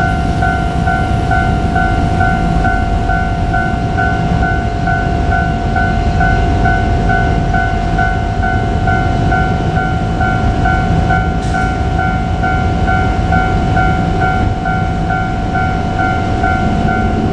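Japanese level-crossing warning bell ringing steadily at about three strikes a second, over the low rumble of a JR Kyushu KiHa 200 diesel railcar on the line.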